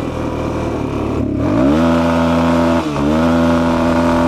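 Suzuki DR-Z400E single-cylinder four-stroke dirt bike engine revving hard through the gears in a rolling burnout, the rear wheel spinning. The pitch jumps up about a second and a half in and holds high, then drops briefly at a gear change near three seconds and climbs again.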